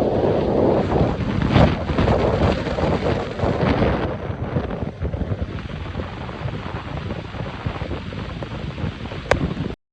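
Wind buffeting the microphone in gusts, strongest in the first few seconds and easing after about four seconds; the sound cuts out for a moment near the end.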